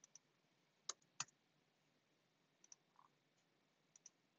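A few sparse computer mouse clicks, single and in quick pairs, the two loudest close together about a second in, over near-silent room tone.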